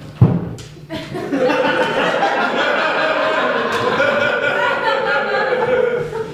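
A single thump, then an audience laughing together for about five seconds, starting about a second in.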